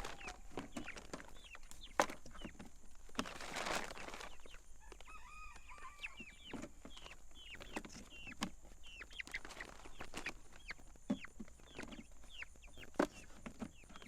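Chickens clucking and calling in many short, repeated notes, with a few sharp knocks and a brief rustling burst about three and a half seconds in.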